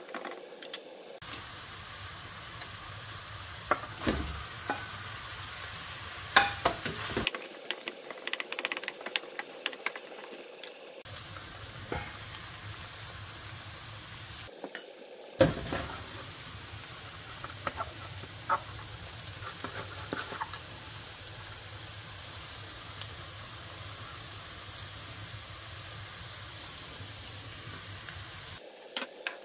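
Ground meat sizzling in a frying pan while a wooden spoon stirs and scrapes it, with many sharp clicks of the spoon against the pan. About halfway through a pot lid clatters once, and a steady hiss of water boiling in a pot follows.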